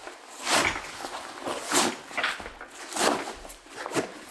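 Fabric rustling as the cooler backpack's outer shell is handled and turned inside out: four separate swishes about a second apart.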